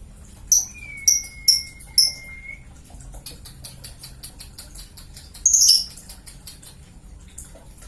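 Lovebird calling: a few short, sharp, high chirps in the first two seconds, then a rapid, fainter run of chattering notes, with a loud burst of chirps about five and a half seconds in.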